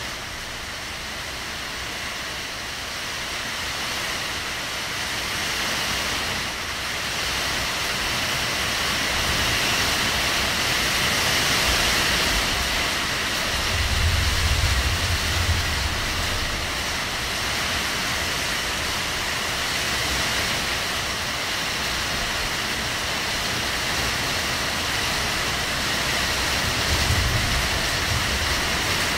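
Heavy rain falling steadily, an even hiss. A low rumble comes about halfway through and again near the end.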